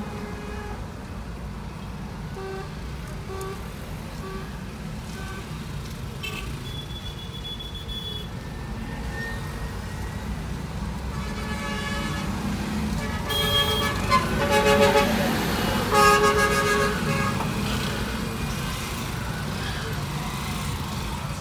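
Congested street traffic heard from inside a car: a steady engine and road rumble, with vehicle horns honking, loudest in a burst of repeated honks about 13 to 17 seconds in.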